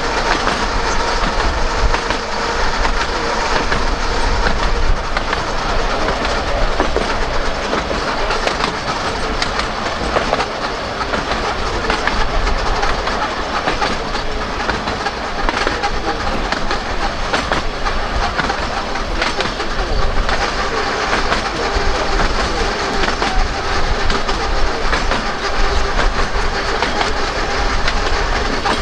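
Narrow-gauge electric tram running along its track, heard from the top deck: a steady rolling rumble with scattered clicks of the wheels over the rails.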